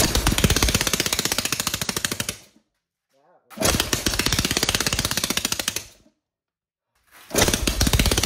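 Homemade 3D-printed 180cc single-cylinder engine firing in rapid pops. It runs in three short bursts of about two and a half seconds, each dying away. The engine will not keep running or hold an idle, which the builder puts down to an air leak at the 3D-printed intake manifold.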